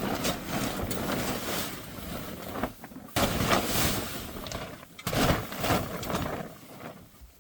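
Snow being pushed and knocked off a tarp cover: rough sliding and scraping noise in three long stretches, with short breaks between them.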